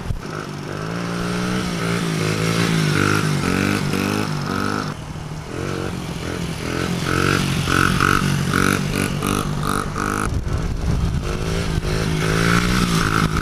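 Honda CRF50 pit bike's small four-stroke single-cylinder engine being ridden hard, its revs rising and falling over and over as the throttle is blipped. The blips come quick and short in the middle and turn into longer rises again near the end.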